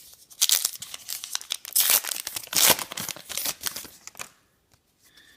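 Crinkly plastic wrapper of a baseball card pack being torn and crumpled open. It starts about half a second in and stops around four seconds in.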